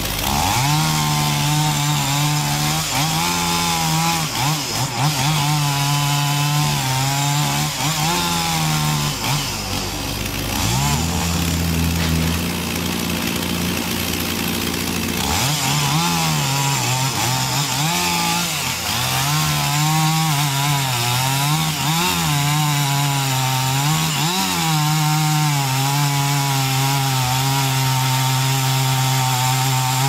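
Large two-stroke chainsaw with a long bar running at full throttle while cutting through a thick tree trunk. Its engine pitch dips and recovers again and again as the chain bogs under load in the cut.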